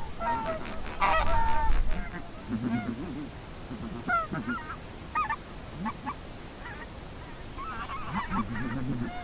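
Greylag geese honking: a dense run of rapid calls in the first two seconds, then scattered single honks, some low and some higher.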